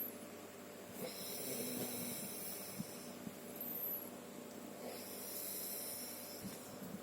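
A sleeping person snoring faintly: two long, hissing breaths about four seconds apart, the snore faltering like a motorbike running out of fuel.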